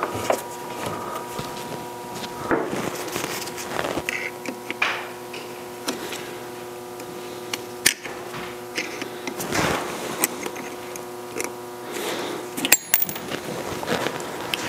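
Light metal clicks, taps and scraping from a hand tool working at a cross pin among the gears and shafts of a Monarch 12CK lathe's gearbox, over a steady hum.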